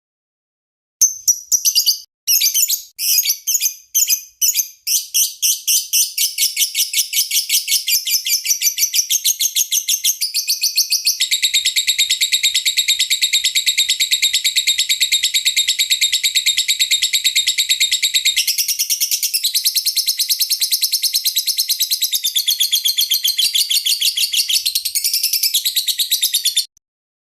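Lovebird song: high-pitched, rapid chirps begin about a second in and quicken into a dense, continuous trill that runs for over twenty seconds, then stops abruptly.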